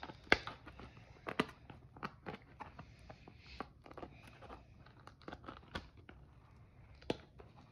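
Plastic shrink-wrap being torn and peeled off a trading-card blaster box, with irregular crinkling and sharp crackles. The sharpest crackles come about a third of a second in and again near one and a half seconds.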